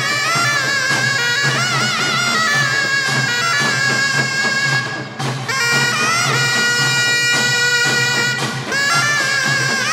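Taepyeongso, the Korean conical double-reed shawm, playing a loud melody of held, wavering notes, with a short break about halfway. Beneath it a pungmul percussion ensemble keeps a steady beat.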